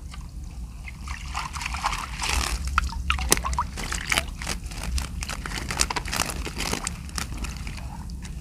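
Shallow water sloshing and splashing, with many quick, irregular splashes, as fish are netted from a fish corral.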